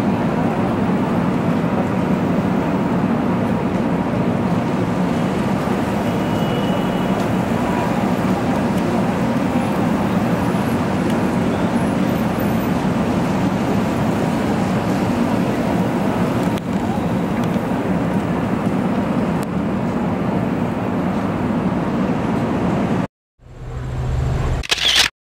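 Steady noise of road traffic or a moving vehicle, which cuts off abruptly near the end. A brief, different sound swells up just after the cut.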